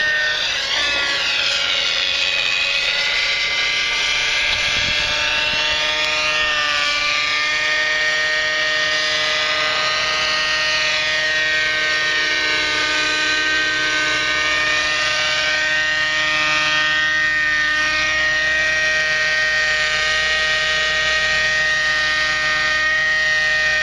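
Thunder Tiger 30 nitro RC helicopter flying: its two-stroke glow engine and rotor head running with a steady high-pitched whine. The higher overtones waver and sweep up and down as the helicopter moves about.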